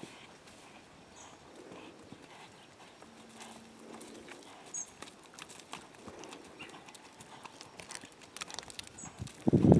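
Horse's hooves cantering on a wood-chip arena surface: soft, muffled thuds with faint clicks. A few short high chirps are heard, and a brief loud rumbling burst comes near the end.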